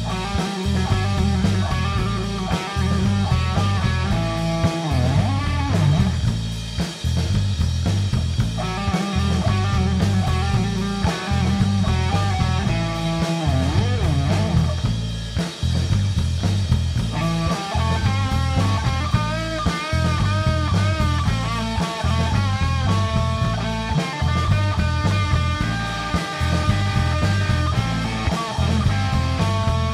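Live rock trio playing loudly: electric guitar lead lines with bent notes over a heavy, repeating bass-and-drums groove. The song has a bluesy, psychedelic-rock feel.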